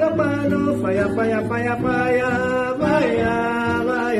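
Acoustic guitar strummed under a man and children singing together.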